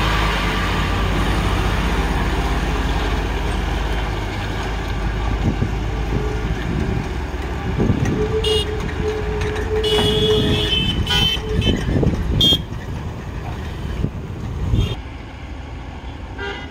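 Diesel engine of a 12-tyre BharatBenz truck running as it rounds a hairpin bend, loudest in the first few seconds and then fading. Mixed traffic follows, with several short vehicle horn toots and a longer horn blast between about eight and eleven seconds in.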